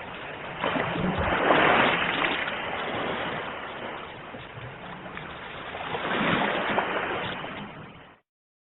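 Ocean waves washing on the shore, two swells of surf rising and falling, then fading out and cutting off about eight seconds in.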